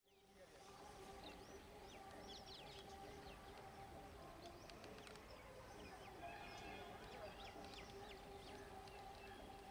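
Faint birdsong, many quick chirps and short calls, over a steady faint hum.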